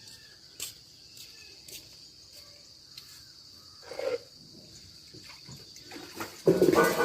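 Crickets chirring in one steady high note, with a few faint clicks, a short knock about four seconds in, and a louder clatter near the end.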